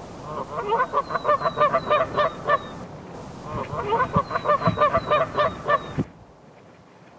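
Geese honking in two quick runs of about two seconds each, several honks a second.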